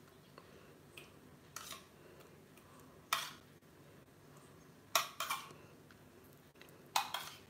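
A spoon clinking and scraping against stainless steel bowls while serving a curd salad: a few light taps early on, then sharper strikes just after three seconds, a pair around five seconds and another pair near the end.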